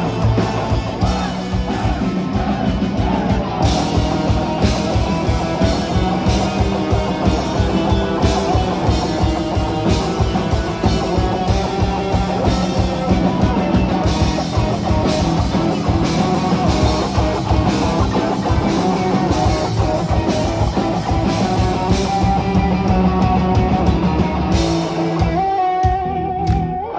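Live rock band playing loud: electric guitar, bass guitar and a drum kit with busy drumming. Near the end the drums stop and a held guitar chord rings on.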